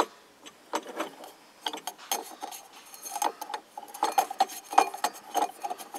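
Metal clinking and rattling as a Beaver Blade chainsaw-tooth disc and its metal dust shield are turned by hand and threaded onto a string trimmer's cutter shaft. Sharp clicks come throughout, with short metallic rings in the second half.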